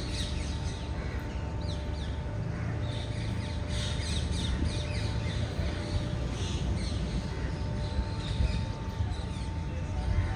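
Birds calling outdoors: many short chirps throughout, with crows cawing among them, over a steady low rumble.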